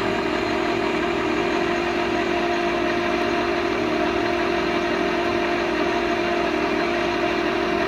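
LeBlond engine lathe running with its chuck spinning: a steady machine hum from the headstock gearing and drive, with several held tones throughout.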